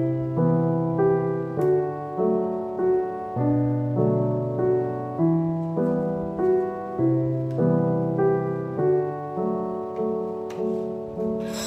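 Background piano music: calm repeated notes, about one and a half a second.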